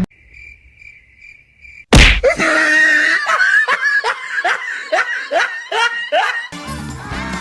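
Cartoon sound effects: a faint pulsing chirp like crickets, then a sudden loud smack about two seconds in, followed by high-pitched laughing in quick repeated bursts. Music comes in near the end.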